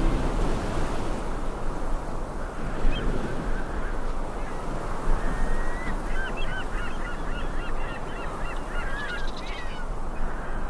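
Steady rushing outdoor ambience with a flock of birds calling in quick, short notes from about six seconds in until shortly before the end.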